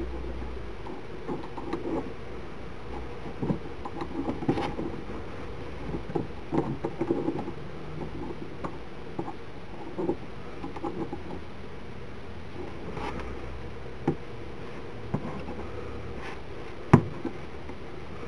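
Faint scattered clicks and rustles from a metal loom hook working against the plastic pegs of a knitting loom and from yarn being handled, as loops are lifted over the pegs during a bind-off. One sharper click near the end.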